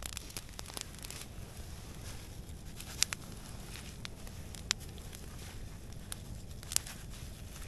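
Wood campfire crackling, with occasional sharp pops a second or two apart, while a plastic packet crinkles in the hands.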